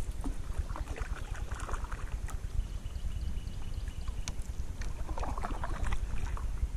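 Canoe paddle strokes dipping and splashing in river water, in two bursts about four seconds apart, over a low wind rumble on the microphone.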